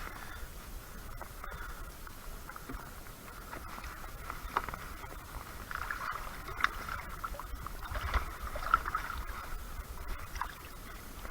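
Water lapping and splashing against a plastic sit-on-top kayak, with scattered sharp clicks and knocks, more of them in the second half, over a low wind rumble.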